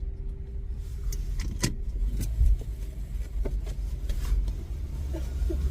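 Infiniti car's engine running with a steady low rumble, heard from inside the cabin, with a few short sharp clicks over it.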